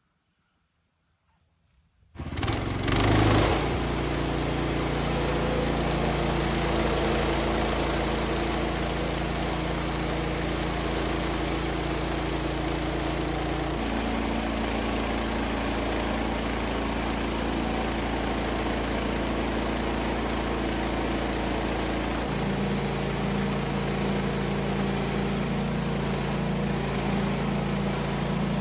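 An engine starts up about two seconds in and then runs steadily, its pitch shifting twice.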